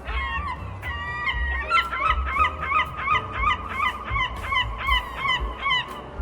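Birds calling: a few longer held calls, then a rapid run of short repeated calls, about three a second.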